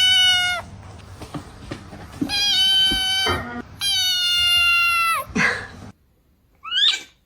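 Kittens meowing: three long, high, drawn-out meows, each dropping in pitch as it ends, then a short cry near the end.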